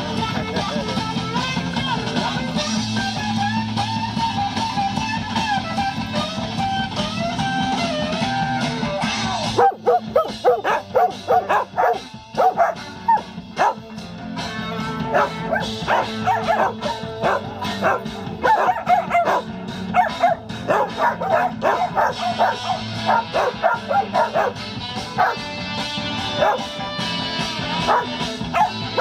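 Rock music with guitar plays for about the first ten seconds, then cuts off suddenly. Several dogs then bark and yip in quick, excited bursts.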